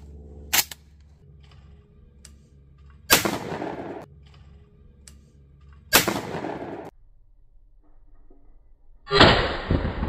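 Two blasts from a Remington 1100 12-gauge semi-automatic shotgun, about three seconds apart, each dying away over about a second. A short sharp crack comes about half a second in, and another loud burst starts near the end.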